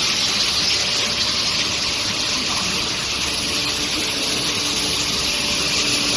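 Steel bar induction hardening and tempering line running: a steady hiss with a thin, high, steady whine above it and a faint low hum.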